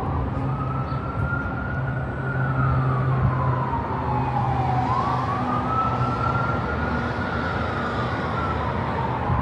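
Emergency-vehicle siren in a slow wail, its pitch rising and falling about every five seconds, over a steady low hum.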